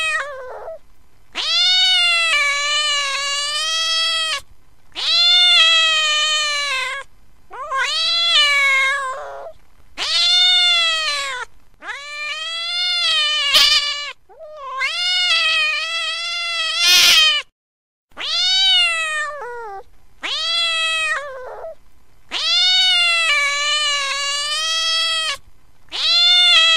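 A domestic cat meowing over and over: about eleven long, drawn-out meows, each rising then falling in pitch, separated by short pauses.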